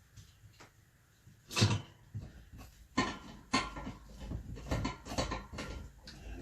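Knocks and clunks of steel bed legs being handled and fitted onto an adjustable bed frame. There is one loud knock about a second and a half in, then a run of clatter from about three to five seconds in.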